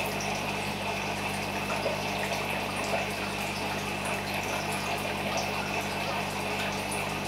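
Aquarium filter pump running, with water trickling and bubbling steadily over a low, steady electrical hum.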